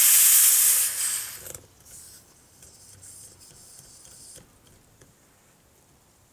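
Air hissing out of a small pneumatic garden-cart tyre through its open valve stem, its valve core out. The hiss is loud for about a second and a half, then fainter, and stops about four and a half seconds in as the core is screwed back in. Faint small ticks from the valve-core tool.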